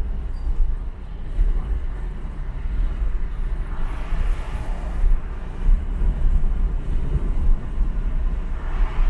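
Car driving at speed on a motorway: steady low rumble of road and wind noise, with a louder rushing swell about four seconds in and another near the end.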